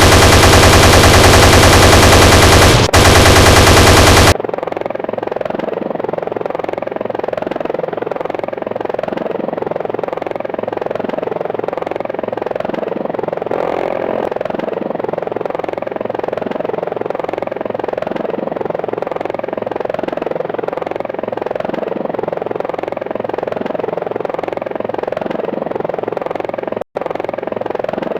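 Apache attack helicopter sound effect: its chain gun firing very loud, rapid, continuous bursts for about four seconds, then stopping abruptly. What is left is the quieter, steady fluttering of the helicopter's rotor and engine, broken once by a momentary dropout near the end.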